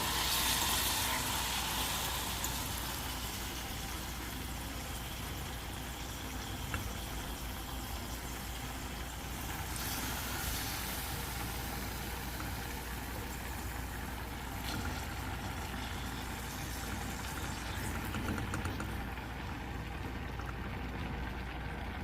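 Seasoned beef steak frying in a hot pan, a steady sizzle that is loudest in the first couple of seconds and then settles.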